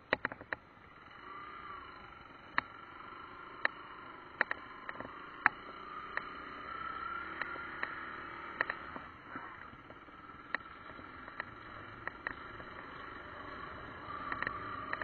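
Yamaha trail motorcycle's single-cylinder engine heard faintly while riding slowly over rough sandy ground, its pitch rising and falling gently. Scattered sharp clicks and knocks, the loudest sounds, come irregularly over the bumps.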